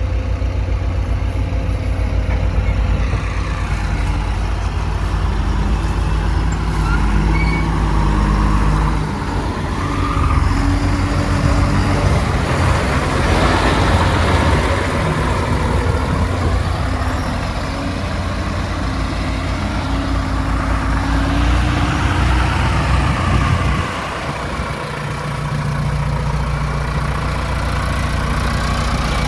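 Heavy diesel engine running continuously at a shifting speed, with its note changing about nine seconds in and dropping briefly near the end.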